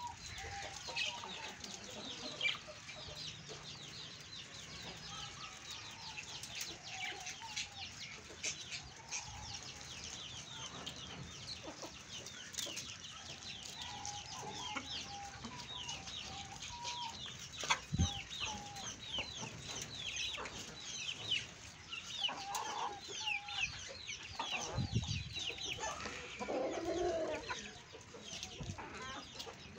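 Aseel hens clucking softly and repeatedly as they feed, over constant high-pitched chirping, with a few sharp knocks.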